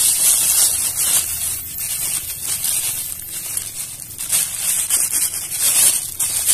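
Thin plastic bag crinkling and rustling in the hands as damp gluten fishing bait is kneaded inside it. A steady rush of stream water runs behind it.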